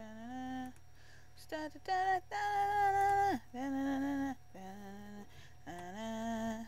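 A woman singing a wordless tune to herself: a string of short held notes, each sliding up into its pitch, with one longer, higher note in the middle.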